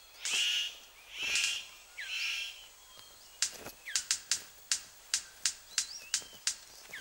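Male superb bird of paradise courting a female: three harsh rasping calls, then from about halfway a steady run of sharp clicks, about three a second, as his display dance starts. Other forest birds whistle faintly behind.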